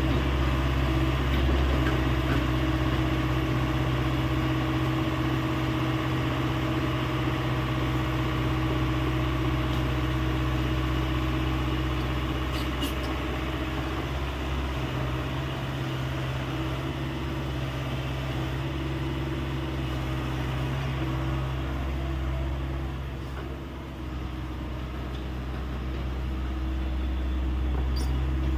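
Hyundai 85A excavator's diesel engine running steadily, briefly dropping in level late on and then coming back up.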